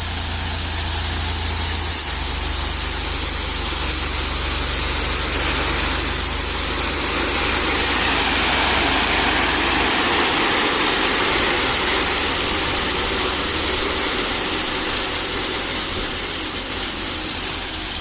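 Tractor engine running steadily while unloading gravel, its low hum shifting a couple of times.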